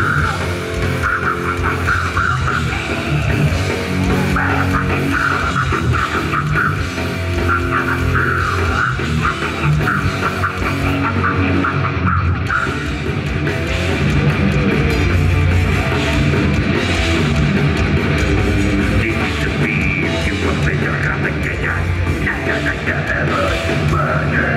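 Heavy metal band playing live: distorted electric guitars, bass and drums, with a singer's vocals over them.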